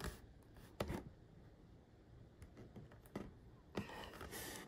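Faint scattered clicks and taps of small tools and objects handled on a workbench, a few sharp ones spread out, with a brief hiss near the end.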